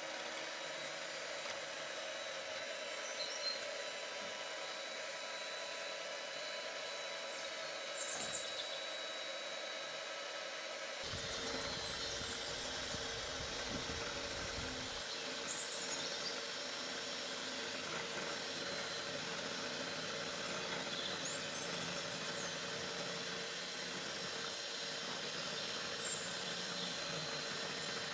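Electric hand mixer running steadily, its twin beaters whipping egg whites in a glass bowl into Italian meringue while sugar syrup is poured in. About eleven seconds in, the sound turns rougher with a low rumble for a few seconds.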